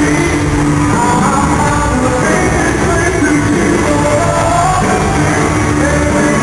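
Rock band performing live through an arena's sound system, with electric guitars, drums and singing.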